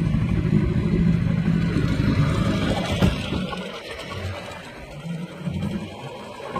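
Fishing boat's engine running with a steady low hum, falling away noticeably after about three seconds, with a single click near the middle.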